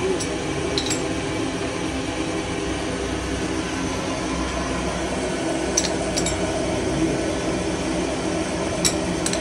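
Lathe machine running with a steady mechanical hum, with a few light metallic clinks in pairs near the start, in the middle and near the end.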